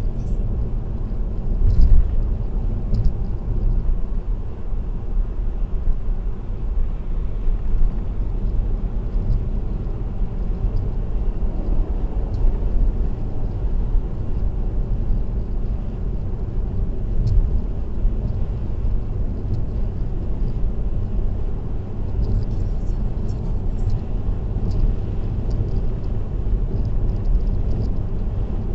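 Car driving at expressway speed: a steady rumble of tyre and road noise with a few faint ticks and a louder bump about two seconds in.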